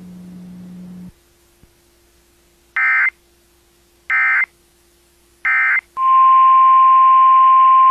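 A low hum cuts off about a second in. Then come three short bursts of EAS SAME header data, warbling digital tones repeated about 1.4 s apart. They are followed, about six seconds in, by the loud, steady single-pitch 1050 Hz NOAA Weather Radio alarm tone that signals the start of a new warning.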